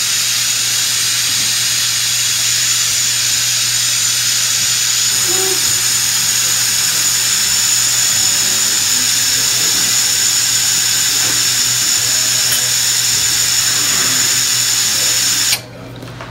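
High-speed dental handpiece (dentist's drill) running steadily against a tooth being prepared for a crown, a high-pitched whine over a hiss. It cuts off suddenly shortly before the end.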